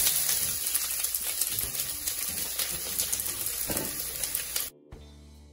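Chopped onions sizzling in hot olive oil in a stainless steel pot, a steady loud hiss. It cuts off suddenly near the end, leaving faint background music.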